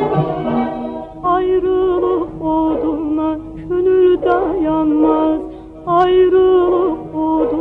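Instrumental passage of an Azerbaijani song played by an orchestra: sustained brass chords end about a second in, then a lead instrument plays short, ornamented phrases with vibrato over a steady held note.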